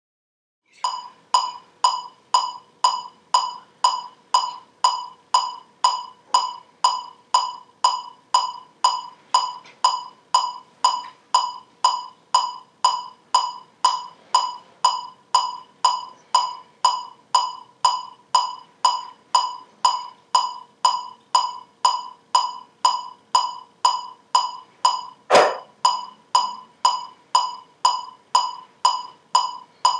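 Metronome clicking at 120 beats per minute, two sharp ticks a second, starting just under a second in. A single louder knock about 25 seconds in.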